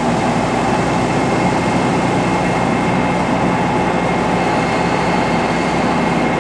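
Metal lathe running steadily while taking a facing cut across a sawmill mandrel's fast collar: an even machine hum with a thin, steady high whine.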